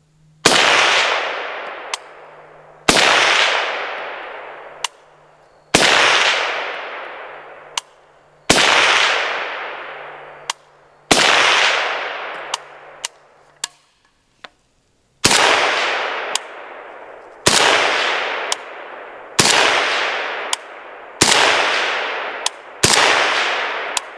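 Ten single suppressed shots from a Zastava PAP M92 AK pistol in 7.62×39 fitted with a 30-calibre suppressor: five about two and a half seconds apart, a pause of about four seconds, then five more about two seconds apart. Each shot is a sharp report followed by a long echo that dies away over a second or two, with faint ticks between some shots.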